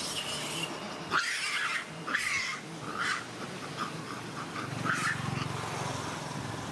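Young macaque's high-pitched cries: several shrill calls in the first three seconds, then a quick string of short squeaks at about five a second, and a last cry about five seconds in.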